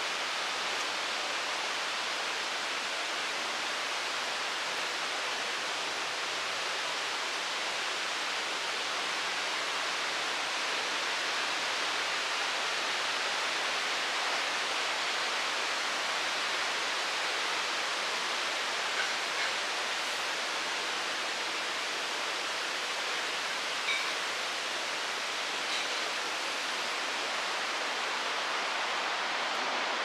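The Foroglio waterfall making a steady, even rush of falling water.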